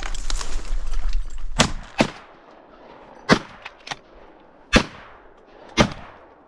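Five shotgun blasts from duck hunters firing at a passing flock, two quick ones close together, then three more spaced about a second apart.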